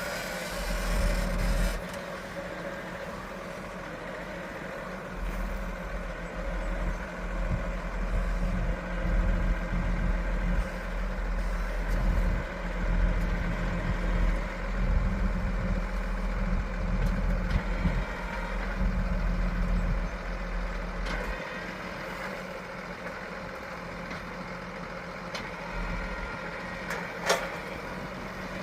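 Heavy farm machinery engine running steadily, its low rumble rising and falling, then easing about two-thirds of the way through. A single sharp click near the end.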